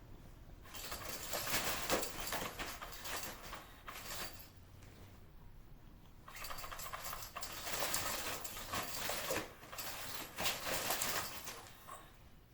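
Cats eating wet canned food close by: crackly chewing and smacking in two long stretches, the first starting about a second in and the second about six seconds in.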